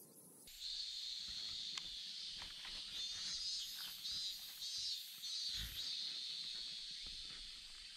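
Cicadas droning in a steady, high-pitched chorus that swells and pulses. It comes in about half a second in. A few small clicks from rod and reel handling and a dull thump a little past the middle sound over it.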